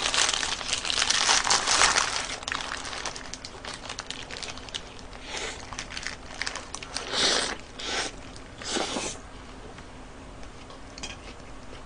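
Paper burger wrapper crinkling and tearing as it is peeled back, then a few crunchy bites and close-up chewing of a Burger King Jalapeño Whopper with fried jalapeños, the bites loudest about halfway through.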